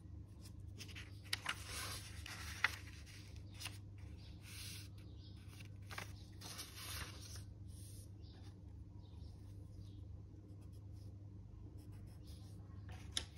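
A sheet of paper being folded and its crease pressed flat by hand on a table: bursts of papery rustling and rubbing, with a sharp tick near the end, over a faint low hum.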